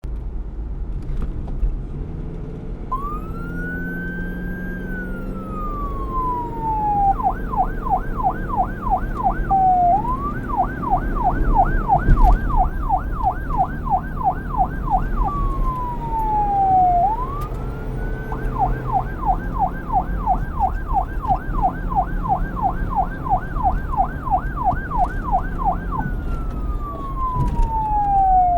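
Police car siren over low street noise. It starts about three seconds in with a slow wail up and down, then switches between a fast yelp of about four sweeps a second and slow falling wails.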